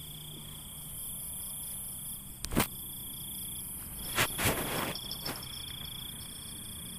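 Crickets and other night insects trilling steadily. Sharp knocks come about two and a half seconds in and again about four seconds in; the first is the loudest sound.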